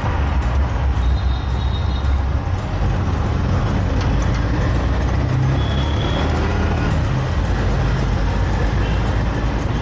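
Auto-rickshaw engine running steadily, heard from inside its open cabin while riding along a city street, with surrounding road traffic.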